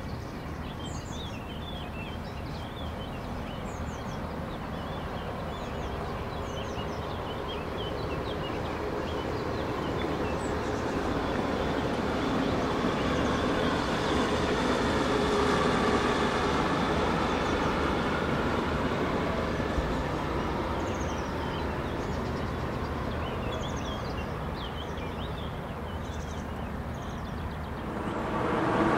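Electric passenger multiple-unit train rolling past along the riverside track, its running noise swelling slowly to loudest about halfway through and then easing off.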